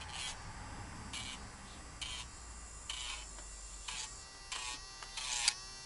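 Battery-powered N10 pet nail grinder running with a steady high whine while its grinding head is pressed to a dog's claws, giving about seven short bursts of grinding noise, roughly one a second.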